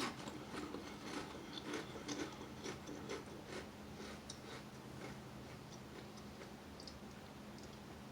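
Close-miked eating of soup: short wet clicks and crackles of chewing and mouth noises, busiest in the first few seconds and then fainter, over a faint steady hum.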